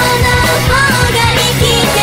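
Upbeat Japanese pop-rock song: female vocals singing a melody over a full band backing with a steady drum beat.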